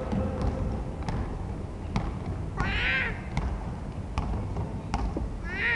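A basketball dribbled on a hardwood court, thudding about once a second, with two short squeaks of sneakers on the wood, about three seconds in and again near the end.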